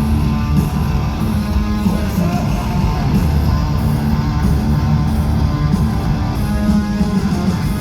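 Live rock band playing loud, distorted electric guitars over bass and drums, as recorded from the crowd at a concert.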